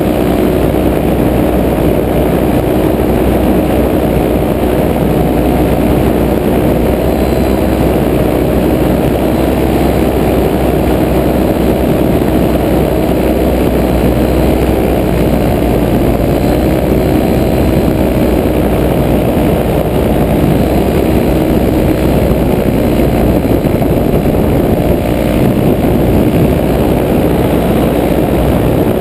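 Paramotor engine and propeller running steadily at cruise power in flight, a constant, unchanging drone.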